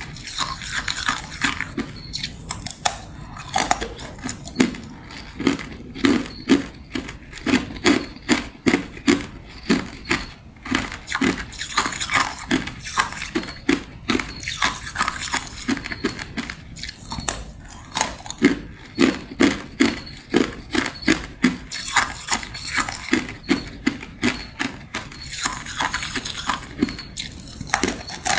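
Thin sheet ice crunching between the teeth as it is bitten off and chewed: a steady run of sharp, crackly crunches, about two to three a second.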